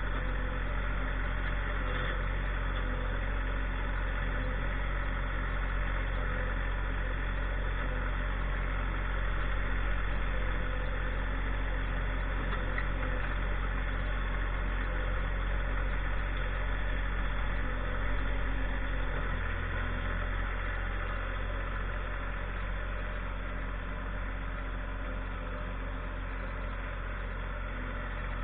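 Tractor engine running steadily, its low drone shifting slightly about two-thirds of the way through.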